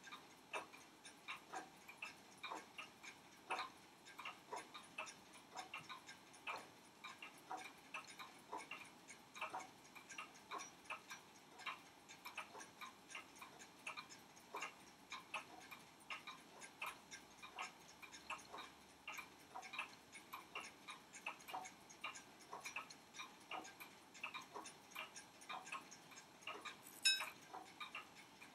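Mechanical pocket watch ticking: a quick, even run of small clicks from the running movement. One sharper, louder click stands out near the end.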